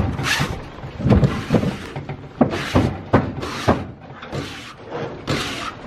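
Repeated rough scraping strokes, each about half a second long and roughly one a second, like a hand tool worked back and forth, with sharp knocks between the strokes.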